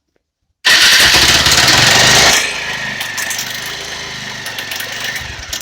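Bajaj Pulsar 220 single-cylinder engine started on the electric starter: a loud, harsh noise for about a second and a half as it cranks and catches, then it idles with a steady clatter. The noise comes from bolts broken behind the magneto (flywheel) cover.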